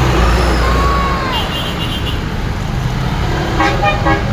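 Bus engine and road noise; about three and a half seconds in, the bus's multi-tone telolet (basuri) horn starts playing a tune of short notes.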